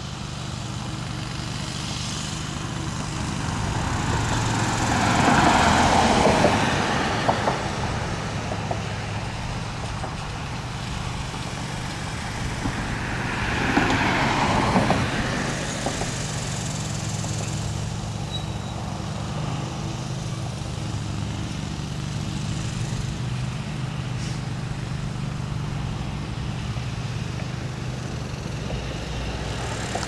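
Road traffic: two vehicles pass, each swelling and fading, about five and about fourteen seconds in, over a steady low hum.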